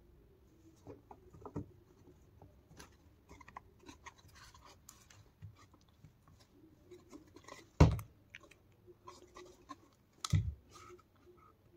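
Handling noise from a homemade speaker box with a metal grille being fitted and turned in the hands: light scraping, rubbing and tapping, with two heavy knocks, the louder about eight seconds in and another about two and a half seconds later.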